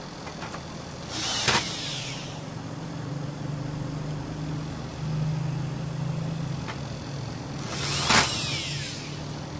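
Screws being driven into a laser printer's sheet-metal chassis with a screwdriver: a sharp click inside a brief hiss about a second in, and again near the end. A steady low hum sounds in between.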